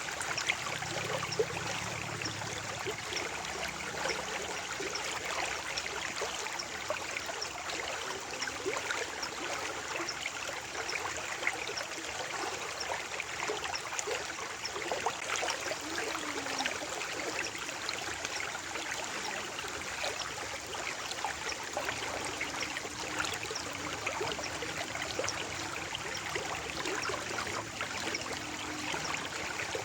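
Shallow stream water flowing and trickling steadily, with many small splashes and gurgles.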